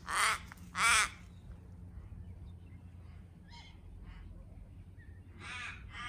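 Crow cawing: two loud harsh caws back to back in the first second, a few fainter calls in the middle, and another caw starting near the end.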